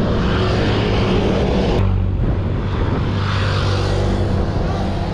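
Wind rushing over the microphone of a cyclist riding on a road, over the steady drone of motor traffic; a brief sharp click a little under two seconds in.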